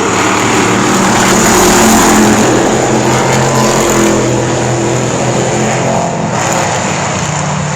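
Race cars running at speed on an asphalt oval: several engines at once, loudest about two seconds in as the pack passes, then easing slightly.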